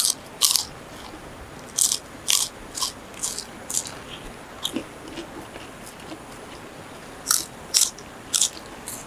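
Crunchy food being bitten and chewed close to the microphone: a quick run of sharp crunches, a few softer chews, a pause, then three more crunches near the end.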